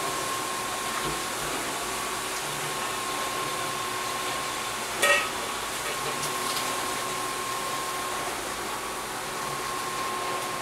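Aquarium equipment running: a steady hum and hiss with a faint high tone. About halfway through, a brief high-pitched squeak is the loudest sound.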